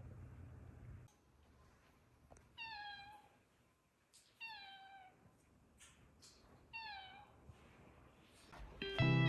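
A stray cat meowing three times, each a short call that falls in pitch, a couple of seconds apart. Acoustic guitar music comes in near the end.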